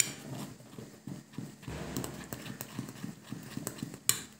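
A utensil knocking against a bowl in quick, uneven taps as a flour, cornstarch and water batter is stirred. There is a sharp clack at the start and another near the end.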